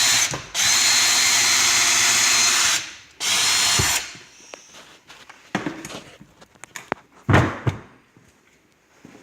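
Cordless drill running in three bursts over the first four seconds, the middle one longest. It is followed by a few light clicks and a knock about seven seconds in.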